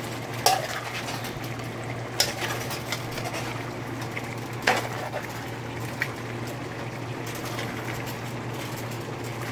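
A thick stew of chicken and cow feet being stirred in a pot to mix in and melt peanut butter, the wet food sloshing, with a few sharp knocks of the utensil against the pot. A steady low hum runs underneath.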